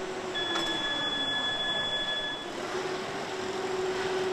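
Car assembly line machinery running: a steady mechanical hum and whine of conveyors, with a high steady tone held for about two seconds shortly after the start.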